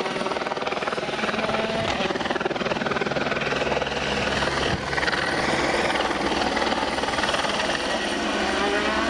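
A rally car's engine revving hard through the gears as it runs along the stage, dipping in the middle and climbing again near the end, over the steady chop of a helicopter overhead.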